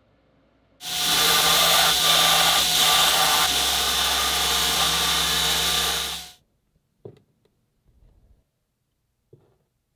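Belt grinder running with a small aluminium part pressed against its abrasive belt. The steady grinding noise and motor hum start abruptly about a second in and stop near six seconds. Then come a few light knocks of the part being handled on a wooden bench.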